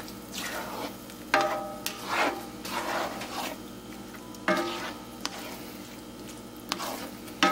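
Spatula scraping and stirring eggs with diced potatoes and onions across the bottom of a cast iron skillet, over a light sizzle of frying. Short scraping strokes come about every half second to second, with a couple of sharper clacks against the pan.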